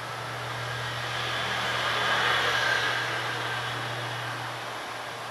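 A vehicle passing: a whoosh that swells to a peak about halfway through and fades away, over a steady low hum.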